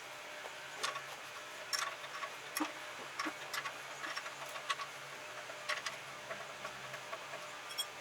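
Light clicks and ticks of metal hand tools and parts being handled, a dozen or so at irregular intervals.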